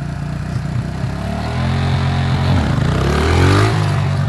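Kawasaki KLX140G's four-stroke single-cylinder engine revving up, its pitch climbing steeply for about a second. About three and a half seconds in, the clutch is let out and the pitch drops as the bike pulls away under load.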